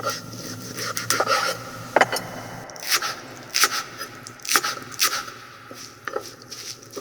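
A string of irregular scrapes and sharp knocks, about one or two a second, over a steady noisy background.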